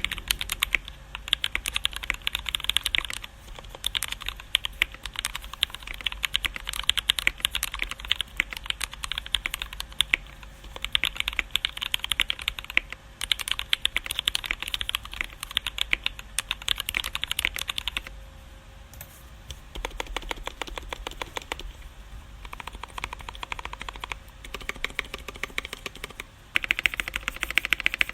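Mechanical keyboard typing on lubed and filmed Feker Holy Panda tactile switches with Cherry-profile keycaps, in an aluminium Tofu60 case with foam dampening. Fast runs of keystrokes come with short pauses, and there is a lull about two-thirds of the way through.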